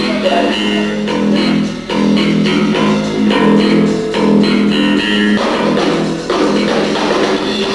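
Rock band playing live, a guitar-led passage with electric guitars over bass guitar.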